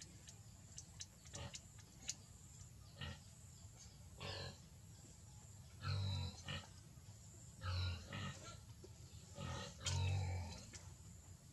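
A baby monkey making a series of short calls, about half a dozen of roughly half a second each, the loudest around the middle and near the end, with light clicks and rustles beforehand as it climbs over the hut's artificial-grass roof.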